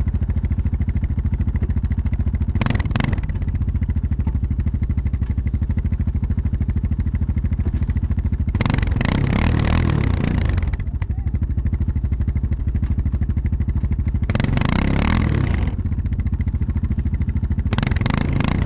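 ATV engine running steadily while towing, with a fast, even pulse, broken four times by short bursts of louder rushing noise.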